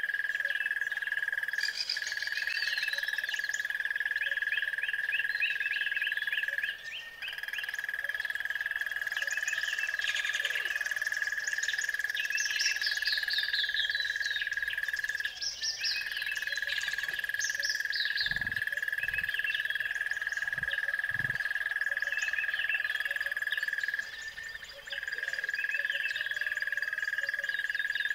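Nature ambience: a steady, high-pitched frog chorus that breaks off briefly three times, with songbirds singing quick, falling trills over it. A few soft low thuds come about two-thirds of the way through.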